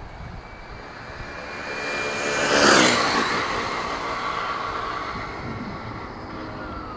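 1/5-scale Redcat Rampage MT RC monster truck passing at high speed on a speed run. Its drivetrain whine builds, peaks loudly about three seconds in as it goes by, then drops in pitch and fades away.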